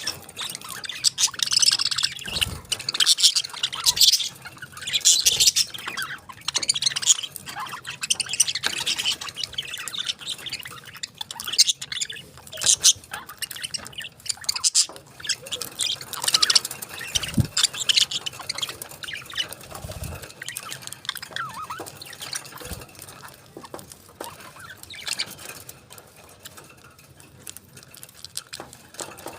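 Pet parakeets chirping and squawking in a rapid, busy chatter that thins out in the last third, with a few brief low knocks.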